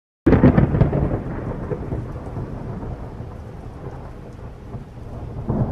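A loud, low rumble that starts suddenly just after the beginning and slowly fades over a steady hiss, swelling again near the end, like thunder over rain.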